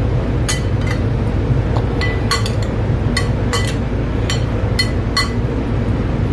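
Metal slotted spoon clinking against a glass mixing bowl while diced beetroot is stirred: about a dozen irregular clinks, over a steady low hum.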